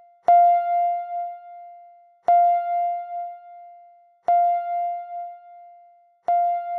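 Countdown timer's bell alarm chiming at zero to signal that the time is up: a single-pitched chime struck four times, one every two seconds, each ringing out and fading before the next.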